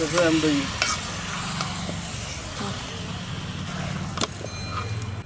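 Raw chicken pieces being stirred into onion-tomato masala in a metal pot with a slotted metal spoon, sizzling, with a few sharp clinks of the spoon against the pot over a low steady hum.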